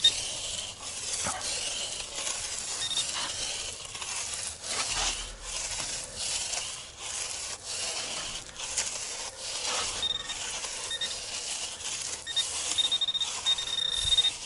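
Repeated scraping and rasping strokes of digging through sand and debris. A pinpointer metal detector gives short high beeps from about ten seconds in, more and more often near the end, signalling iron.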